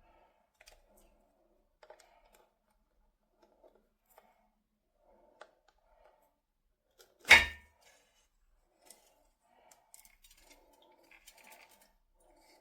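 Faint handling noises: scattered light clicks and rustles, with one sharp knock about seven seconds in.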